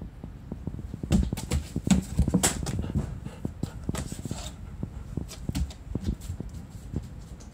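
German Shepherd's claws clicking and tapping irregularly on a hard floor as it moves about, busiest in the first few seconds.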